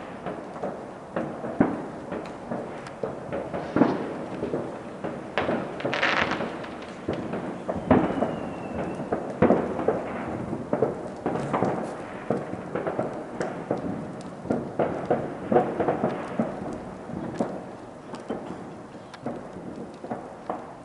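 Fireworks going off in a continuous, irregular barrage, with many overlapping bangs and booms of varying loudness merging into a rolling rumble, and a faint short whistle about eight seconds in.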